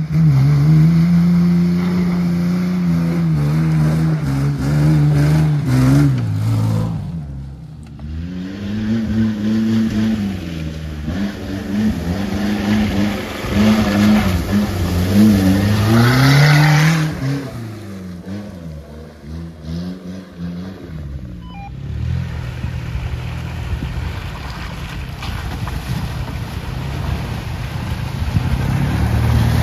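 Off-road 4x4 engines working through deep mud, the revs repeatedly rising and falling as the drivers feed throttle. About halfway through, one engine's rev climbs to a peak and drops away; in the last third a steadier, lower engine note carries on.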